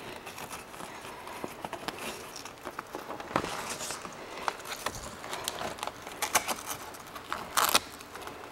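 Fabric winter front cover rustling and scraping as it is worked through plastic grille slats by hand, with scattered small clicks and a short, louder rasp about three-quarters of the way through.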